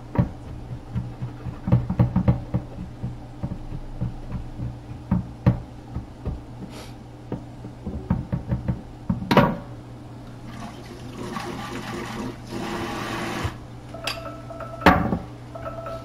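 A chef's knife chopping on a wooden cutting board: quick runs of sharp knocks through the first half. Then a heavy thump, about three seconds of steady rushing like running tap water, another thump, and two short steady tones near the end, over a constant low hum.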